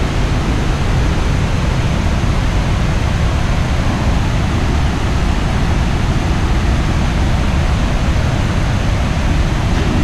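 Iguazu Falls: the steady, loud rush of falling water, heaviest in the low end.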